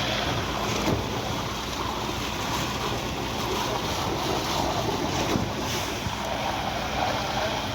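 Cifa truck-mounted concrete pump running steadily during a slab pour: a low engine drone under a constant rushing wash of noise.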